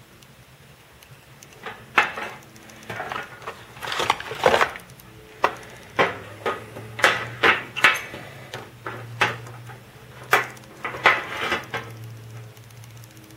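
Unboxing handling of the LED bulb kit's packaging: a string of sharp clicks, knocks and rustles, starting about two seconds in and going on irregularly, over a faint steady low hum.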